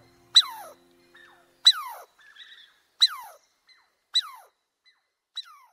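Five short, high animal squeaks, each dropping steeply in pitch, spaced about a second and a quarter apart; the last one is fainter. The tail of a held musical note fades out under the first one or two.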